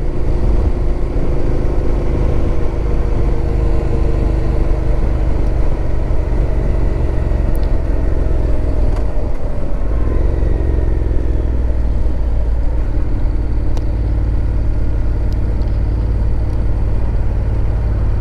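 Honda NC750X parallel-twin motorcycle engine running under way, mixed with wind rush. The engine note eases down over the first half as the bike slows, then climbs again about ten seconds in as it picks up speed.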